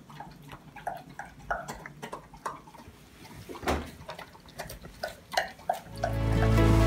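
A dog eating wet raw food from a plastic bowl: irregular wet smacking and clicking of chewing and lapping. Soft music starts near the end.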